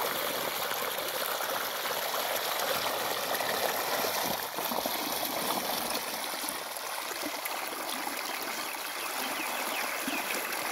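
Muddy irrigation water flowing fast along a dug earthen field channel, a steady rushing of water.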